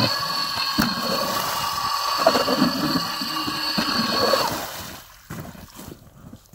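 Electric ice auger running steadily with a motor whine as it bores through lake ice. The whine winds down about four and a half seconds in, followed by scattered crunches and knocks of ice and slush as the auger is pulled from the hole.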